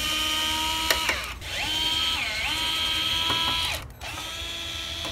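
Cordless drill-driver motor whining as it backs out the mounting plate's screws, running in three stretches with short pauses between. Its pitch dips briefly during the middle stretch.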